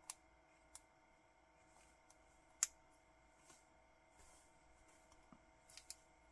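A few small, sharp clicks of a spring bar and strap being worked into a watch case's lugs by hand, the loudest about two and a half seconds in and a quick pair near the end; otherwise near silence.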